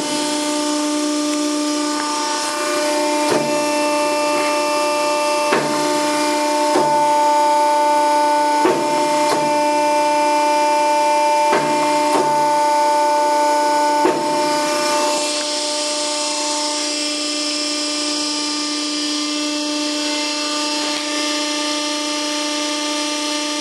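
Scotchman 65-ton hydraulic ironworker running, its hydraulic pump giving a steady hum. The punch ram is jogged up and down, with a sharp knock every second or two at the ends of its strokes. After about fourteen seconds the knocks stop and only the pump runs on.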